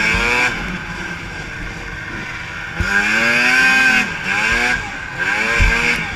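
Racing snowmobile engines revving hard and dropping back over and over, the pitch rising and falling several times, with the loudest surges near the start and about three seconds in.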